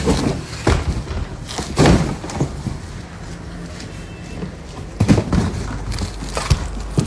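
Cardboard boxes being handled and moved, with a few dull thumps and knocks spread through, the loudest pair about five seconds in.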